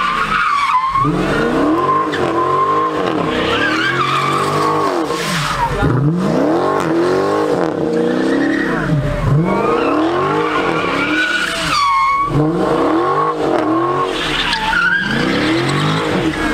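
Dodge Challenger spinning donuts: its engine revs rise and fall over and over, about every second or so, while the rear tires squeal steadily against the pavement.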